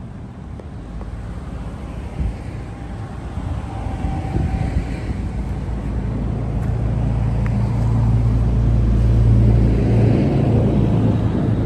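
A motor vehicle's engine running steadily, growing louder through the second half and easing slightly near the end.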